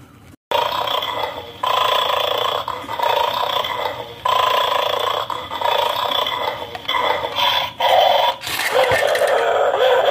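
Recorded dog growls played through the small speaker of a toy guard-dog game, coming in rough stretches of one to two seconds, one after another.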